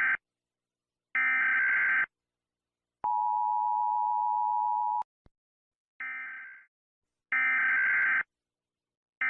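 Emergency Alert System tones: SAME digital header bursts, each about a second long with silence between, with a steady two-note attention tone about two seconds long in the middle. A shorter burst fades out about six seconds in, and another header burst starts near the end.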